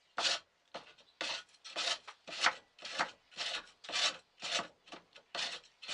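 Reconstructed Viking-age wooden hand plane, carved from a tree branch, being pushed over a board in quick repeated strokes, about two a second, scraping and shaving the wood.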